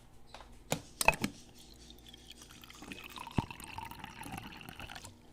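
A few clicks of handling a cup, then water pouring into it for about three seconds before stopping.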